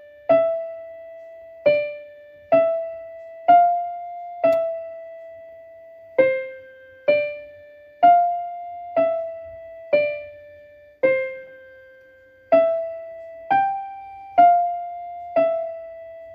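Outro music: a slow melody of single piano notes played one at a time, about one a second, each struck and left to fade.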